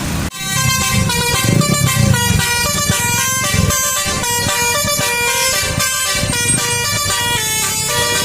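Bus 'telolet' basuri air horns playing a quick tune, a run of short held notes stepping up and down in pitch, starting abruptly just after a brief break.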